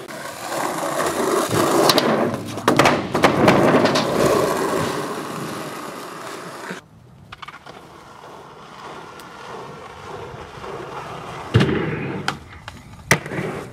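Skateboard wheels rolling with the board clacking and slapping down as tricks are popped and landed. About halfway the rolling cuts off and goes quieter, then two sharp board smacks come near the end.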